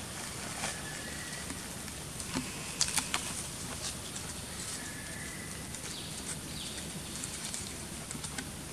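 Dry leaf litter crackling and rustling as macaques scuffle on the forest floor, with a cluster of sharp crackles about three seconds in. Beneath it runs a steady outdoor hiss with a few faint, short high calls.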